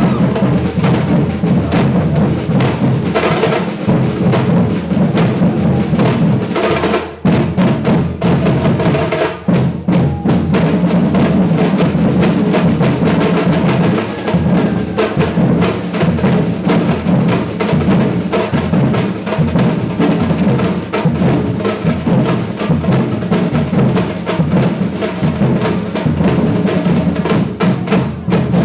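Brazilian batucada percussion ensemble playing a fast, driving rhythm on bass drums, snare-type drums and other percussion. The playing drops away for an instant twice, about seven and nine seconds in.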